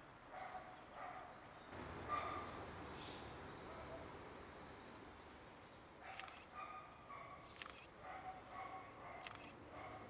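Eastern spot-billed ducklings peeping: short, high calls repeated throughout. Three brief sharp noises break in during the second half.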